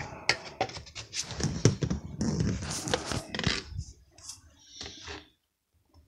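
Irregular rustling, scratching and sharp knocks of a phone camera being handled while its lens is covered, dying away about five seconds in. No vacuum motor is running.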